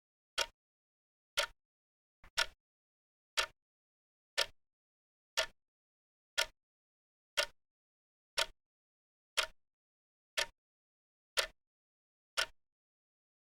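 Clock ticking steadily once a second, each tick short and sharp with silence between: the ticking sound of a countdown timer.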